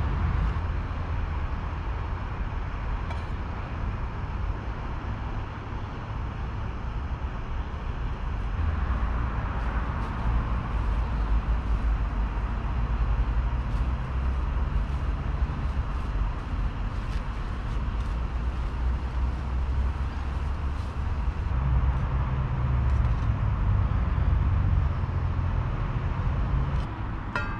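Steady rumble of road traffic circling close by, swelling and easing as vehicles pass, with a few faint rustles and clicks of plastic being handled.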